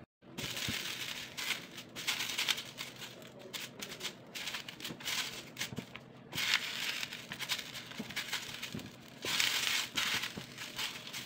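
Banana leaves crinkling and rustling in several spells as they are handled and pressed onto a hot iron pan to wilt them soft.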